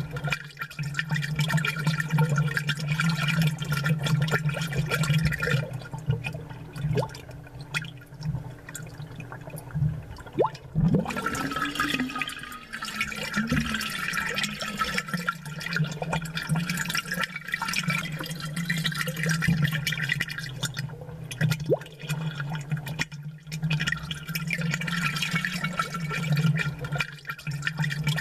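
Aquarium water bubbling and gurgling from an air-driven bubbler, with dense small pops and splashes over a steady low hum. It eases off for a few seconds midway, then picks up again.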